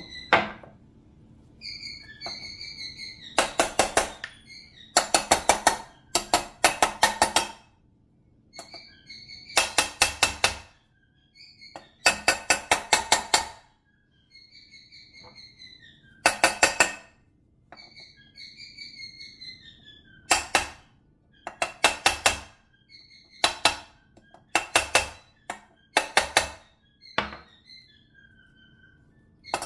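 Ball-peen hammer tapping a steel bearing driver to seat ball bearings into a heated aluminium Honda TRX250R crankcase half. The taps come in quick ringing metallic bursts of three to six, with pauses of one to three seconds between bursts.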